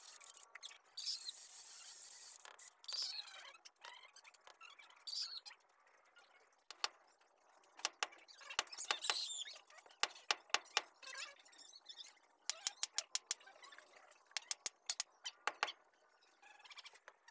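Short bursts of a cordless drill boring into a wooden machete handle, followed by a run of sharp, light clicks and knocks while the machete's tang is fitted into the handle.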